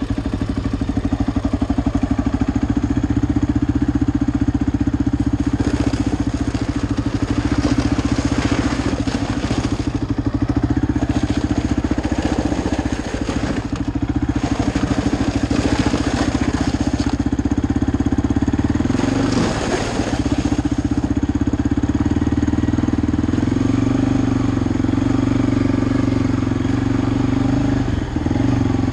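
Quad (ATV) engine running steadily under the rider, heard from onboard. Several stretches of added hiss a few seconds long come and go over it.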